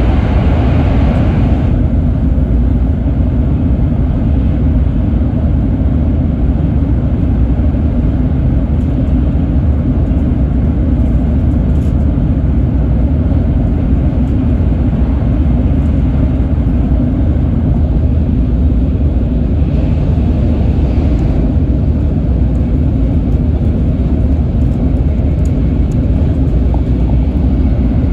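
Cabin noise of a Sakura-service Shinkansen (N700-series) running at speed: a steady low rumble of running gear and air. A brighter rush in the first two seconds drops away, and it lifts slightly again about two-thirds of the way through.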